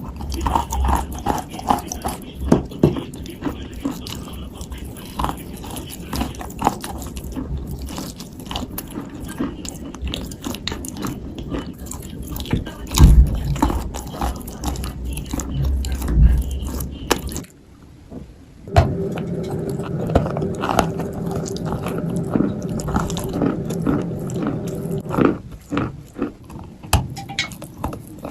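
A person biting and chewing dry, powdery white clay (Turkestan white). Many irregular, crisp crunches, with a brief lull about two-thirds of the way through.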